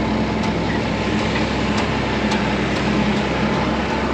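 Tractor engine running steadily while pulling a manure spreader that has just been engaged to spread, with a light ticking from the machinery about twice a second.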